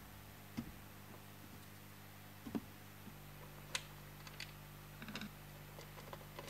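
Scattered light clicks and taps of hand reassembly: a plastic control knob pressed onto its shaft, then a screwdriver tip seating in a cabinet screw, with a quick cluster of small clicks about five seconds in.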